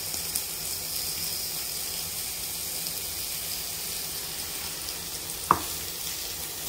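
Sendai wagyu beef sizzling on a tabletop grill, a steady hiss, with one sharp click about five and a half seconds in.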